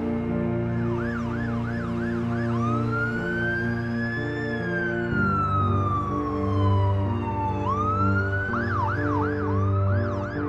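Siren sounding over sustained music chords. It starts with a fast yelp about a second in, then gives one long wail that rises for about two seconds and falls for about three, then goes back to fast yelping near the end.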